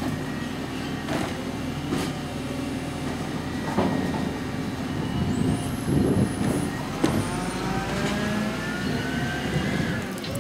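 Volvo FL250 side-loader garbage truck's diesel engine running while its automated arm lifts, tips and sets down a wheelie bin, with several knocks and bangs. From about seven seconds in, the engine rises in pitch as the truck pulls away.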